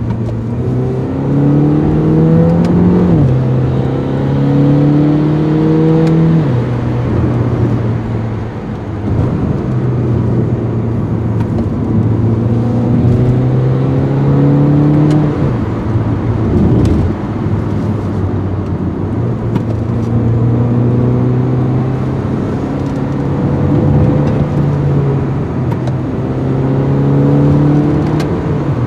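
2009 Mini Cooper S R56's 1.6-litre turbocharged four-cylinder engine accelerating through the gears of its six-speed automatic gearbox. The pitch climbs steadily and then drops at each upshift, several times over, with brief let-offs in between.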